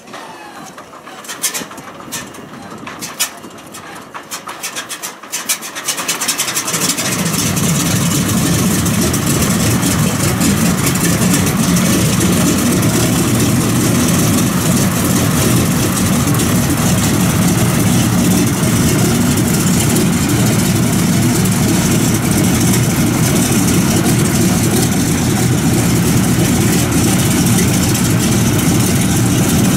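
Republic P-47D Thunderbolt's Pratt & Whitney R-2800 Double Wasp radial engine starting: several seconds of cranking with scattered sharp pops, then it catches about seven seconds in and settles into steady running at idle.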